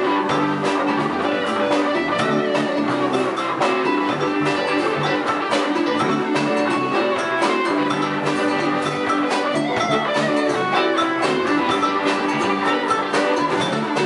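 Live band playing an instrumental: electric guitar, electric bass, drum kit and a Roland JV-90 synthesizer keyboard, with a steady drum beat throughout.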